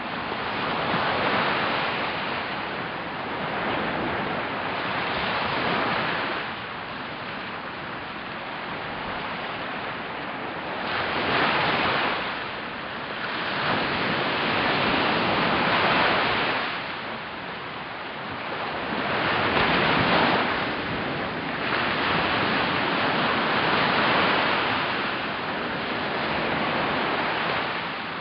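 Sea waves breaking and washing up the shore around rocks, the surf swelling and fading every few seconds.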